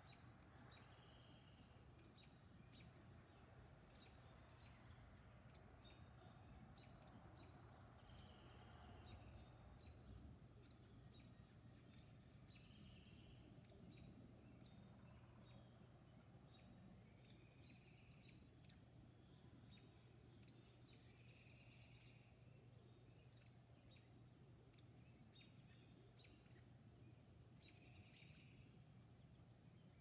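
Faint birdsong at dawn: many short high chirps and a few longer calls from small birds, scattered throughout, over a low steady hum.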